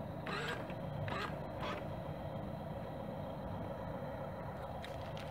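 Small electric drive motor and gearing of an RC dump truck running steadily as it drives back and forth with its bed raised. Three short rasping squawks stand out in the first two seconds.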